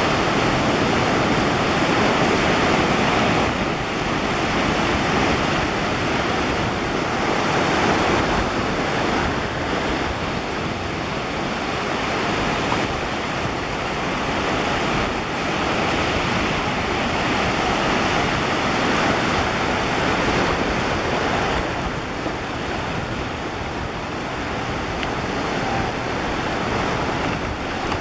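Steady rush of surf washing against a rocky shore, swelling and easing gently.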